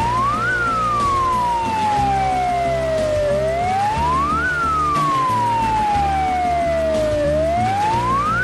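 Ambulance siren wailing: each cycle rises quickly in pitch and falls slowly, repeating about every four seconds, with a fainter second siren out of step. Background music plays underneath.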